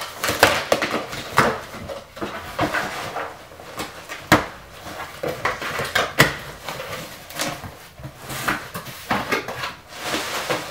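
Cardboard shipping box being opened by hand: the sealed lid pulled and the flaps torn apart, giving an irregular run of scraping, crinkling and sharp cardboard snaps, the loudest about four seconds in and again about six seconds in.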